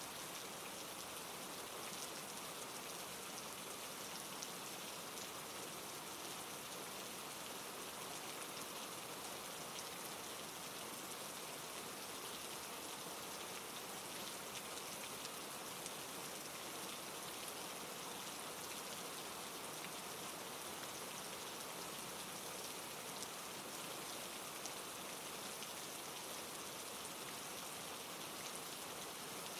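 Steady rain falling and pattering on a surface, with many small drops ticking.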